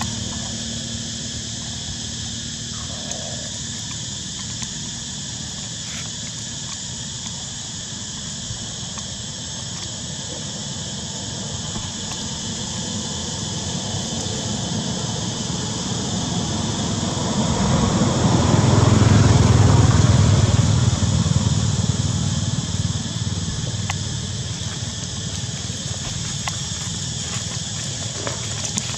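A motor vehicle passes on a road, its low engine and tyre noise swelling and fading about two-thirds of the way through, over a steady high-pitched drone.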